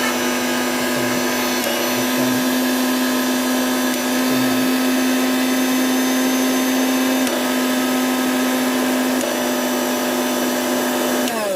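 Electric motor of an Elevate 550 W mixer grinder running with a steady whine, its pitch stepping slightly up and then down as the switch is moved through its speeds. It is switched off near the end and winds down with a falling pitch.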